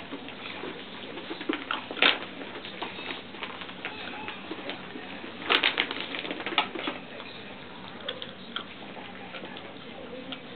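Doodle puppies at rough play: a steady patter of paws and bodies scuffling on bath mats, with soft coo-like puppy grumbles. There are louder knocks about two seconds in and again in a cluster from about five and a half seconds.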